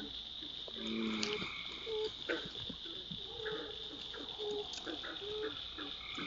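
Wetland frog chorus at night: a steady high-pitched trill with many short, repeated lower calls over it, and one longer pitched call about a second in.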